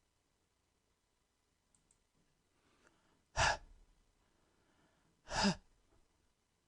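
Two short breathy puffs, about two seconds apart: the English consonant /h/ spoken on its own as a voiceless breath sound.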